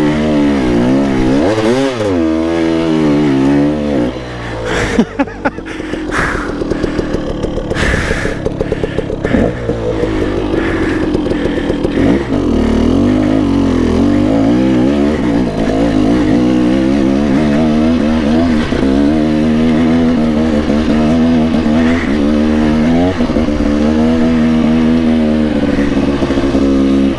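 2016 KTM 300 XC-W two-stroke dirt bike engine running under load through its Pro Circuit expansion pipe, revving up and down as the rider works the throttle. About five seconds in, the engine briefly drops off amid a few sharp knocks, then picks back up and holds a fairly steady pitch with small swells.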